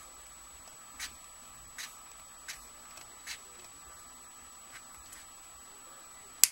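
Small metal round-nose pliers clicking and tapping against a thin wire headpin as it is bent into a loop: about six light clicks spaced roughly a second apart, then one sharp, louder click near the end.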